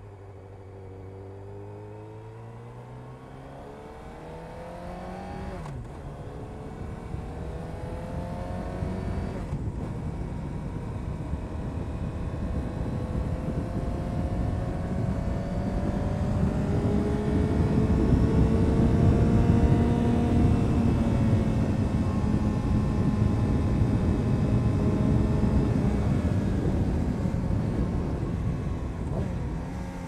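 2000 Honda CBR929RR Fireblade's inline-four engine through an Erion Racing full exhaust, pulling up from low revs and accelerating through the gears, with short breaks for upshifts about six and ten seconds in. A rushing noise builds with speed under the engine, loudest past the middle, then eases near the end.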